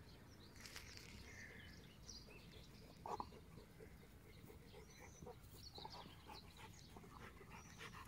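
Near silence outdoors: a Rottweiler faintly sniffing and moving through grass, with scattered faint chirps and one brief soft sound about three seconds in.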